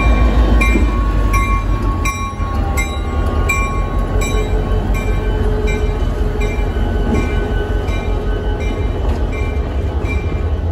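EMD GP30 diesel locomotive rolling slowly past with a low engine rumble and its bell ringing about twice a second. The rumble eases after about two seconds as the locomotive goes by and the railcars behind it roll past.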